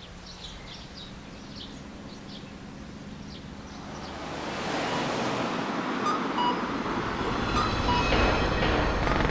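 A wash of ambient noise that grows louder from about four seconds in, with a few short high chirps in the first few seconds.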